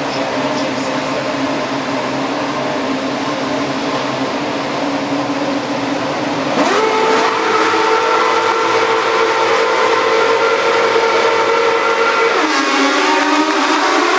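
The grid of 2013 Formula 1 cars' 2.4-litre V8 engines running on the starting grid: idling with a steady drone, then about halfway through revved together to a higher pitch and held there for the launch. Near the end the pitch sags and then climbs sharply as the cars get away at the start.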